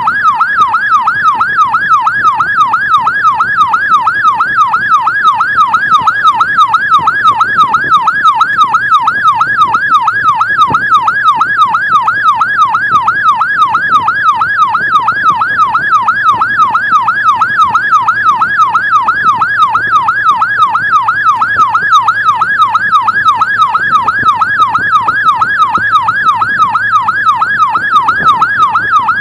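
Electronic emergency-vehicle siren on a fast yelp, its pitch sweeping up and down a few times a second without a break, over a low steady hum.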